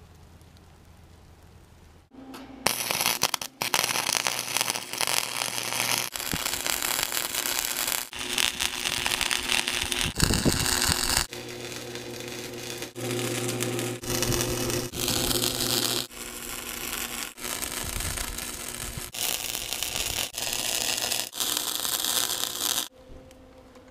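Flux-core wire-feed arc welder crackling through a series of short welds on steel, about eight in a row, each one to three seconds long with brief pauses. They are light tack welds holding pieces in place inside the sheet-steel keel, since the small welder cannot make a strong weld on metal thicker than 1/8 inch. Before that, for about two seconds, there is only a faint steady hum.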